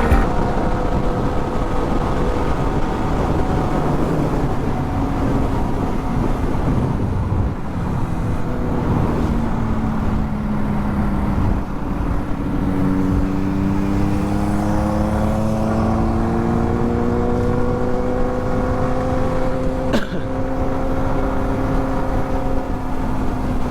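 Motorcycle engine running at speed under wind and road noise. Its pitch falls over the first few seconds, drops again about halfway through, then climbs steadily as the bike accelerates.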